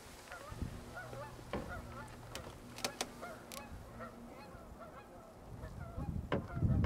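Flock of geese honking, many short calls overlapping one another. A low rumble on the microphone grows near the end.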